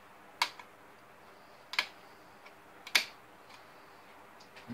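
Three sharp clicks, spaced more than a second apart, as the projector's air filter frames are handled and pulled out.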